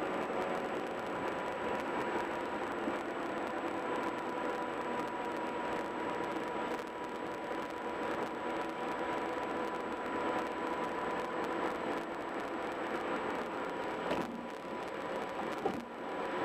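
Steady road noise from a car cruising at highway speed: a continuous rush of tyre and wind noise with a steady hum, and one brief knock about fourteen seconds in.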